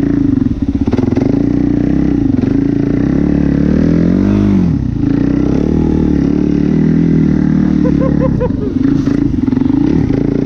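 Suzuki QuadSport Z400 ATV's single-cylinder four-stroke engine running under throttle as the quad is ridden through deep snow. The engine note swells and falls once about four seconds in, and wavers again briefly near the end.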